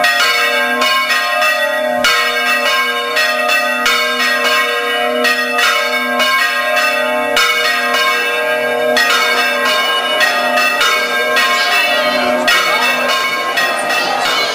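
Church bells ringing a peal, strokes following one another at about two to three a second, each ringing on over the next.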